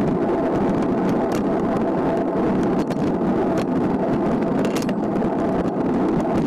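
Road-bike riding noise heard from a camera on a moving bicycle: wind rushing over the microphone and tyres rolling on asphalt, a steady rush with a faint hum and scattered small clicks.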